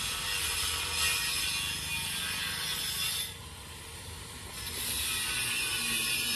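Handheld electric angle grinder cutting into square steel tubing, the disc's high grinding hiss over the motor's hum. The disc eases off the metal about three seconds in and bites again about a second and a half later.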